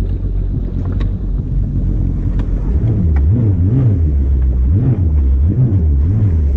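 Kawasaki jet ski engine running at low speed while manoeuvring, its revs rising and falling in repeated short throttle blips from about three seconds in.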